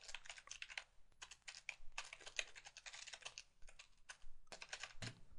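Faint typing on a computer keyboard: a quick run of uneven keystrokes as text is typed.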